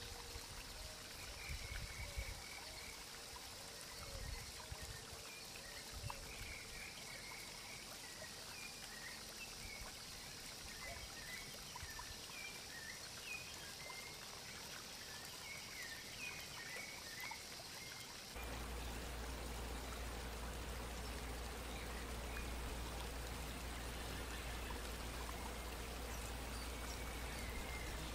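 Steady outdoor background hiss with scattered faint, short high chirps. About two-thirds of the way through the background changes abruptly to a plainer hiss with a low steady hum underneath.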